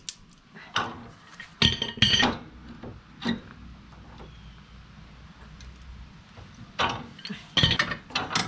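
Pipe wrench clanking against a steel snow-plow mounting part while it is levered and bent into shape. There are scattered metal knocks with a brief ringing clink: a few between one and two seconds in, one near three seconds, a quiet stretch, then another run of clanks near the end.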